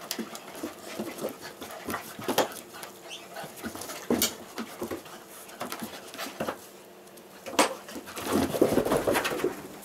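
Labradoodle and basset hound wrestling, a run of irregular short sharp dog sounds, with a busier, louder stretch near the end.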